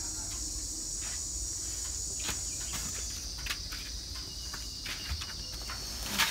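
Steady high-pitched drone of insects, with scattered light knocks and rustles as woven sacks of rice paddy are handled; a sharper knock near the end.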